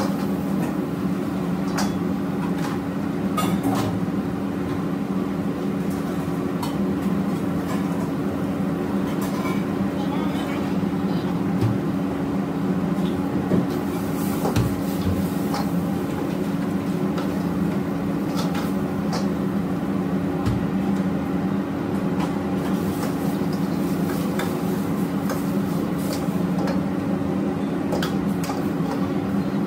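Wok stir-frying on a commercial gas wok range: a steady low hum from the burners and kitchen extraction, with a metal ladle clanking and scraping against the wok many times over.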